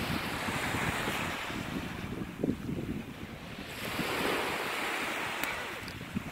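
Small surf waves washing up onto a sandy beach in two surges, the second about four seconds in, with wind buffeting the microphone.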